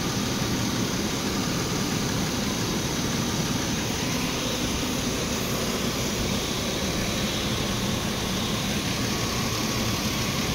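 Chevrolet 3.4 V6 engine idling steadily while it warms up, being watched for overheating after a thermostat replacement.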